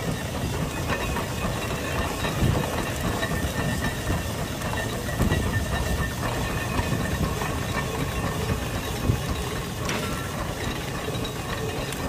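Case steam traction engine working under heavy load pulling a gang plow: steady exhaust beats with a hiss of steam.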